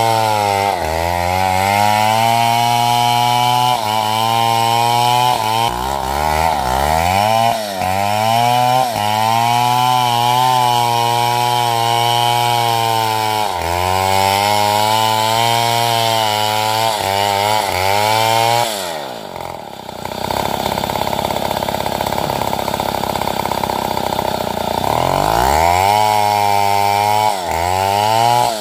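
Large two-stroke chainsaw, a Stihl MS070, cutting wood: the engine note sags and recovers repeatedly as the bar loads up. About two-thirds of the way through, the revs fall steeply and the saw runs low and rough for several seconds before revving back up.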